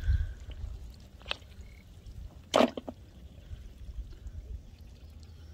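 Hands groping in shallow muddy swamp water for snails: water dripping and sloshing, with a small click about a second and a half in and one loud, sharp splash about two and a half seconds in.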